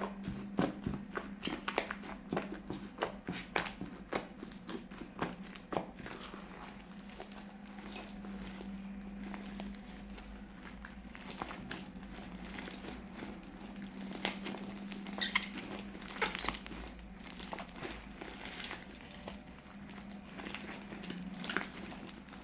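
Fluffy slime being squished and stretched by hand, crackling and popping, with rapid pops through the first few seconds and sparser ones after.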